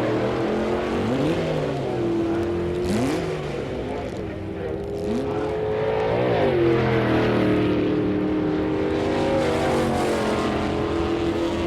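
Engines of stock street cars set up for drag racing, several running at once: short rising revs about one, three and five seconds in, then a loud sustained engine note under full throttle.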